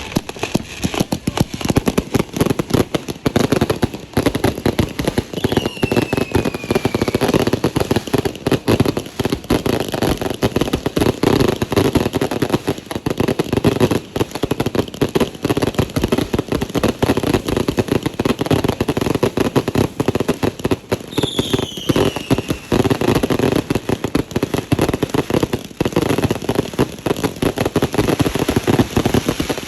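A whole stash of fireworks and firecrackers going off at once: a dense, unbroken barrage of rapid bangs and crackling, with two falling whistles about six and twenty-one seconds in.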